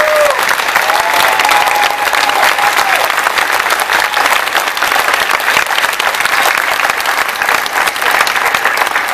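Large crowd applauding steadily, with a few voices cheering in the first seconds.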